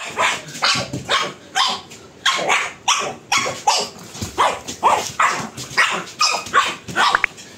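A pug barking over and over, short sharp barks at about two a second.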